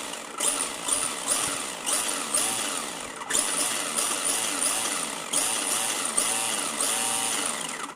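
Tamiya TT-01 RC car's electric motor and drivetrain whining as the throttle is blipped over and over with the wheels spinning in the air, rising in short surges about two a second. The freshly replaced spur gear and pinion run without the ka-la ka-la gear rattle.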